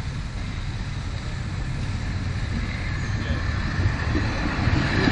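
Passenger coaches rolling along the track toward and past, pushed by a steam locomotive in a shunting move: a low rumble of wheels on rail that grows steadily louder.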